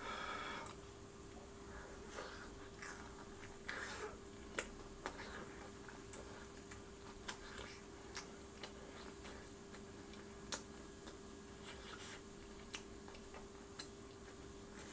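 A person biting into a piece of fried snack food dipped in tteokbokki sauce, then chewing it close to the microphone: a short burst of mouth noise at the bite, followed by scattered small wet clicks, over a faint steady hum.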